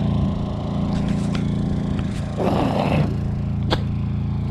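Small gasoline portable generator running at a steady hum. A brief scraping rustle comes about two and a half seconds in.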